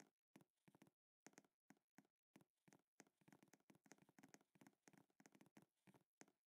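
Faint computer keyboard keystrokes, a fast, uneven run of key clicks as number after number is typed.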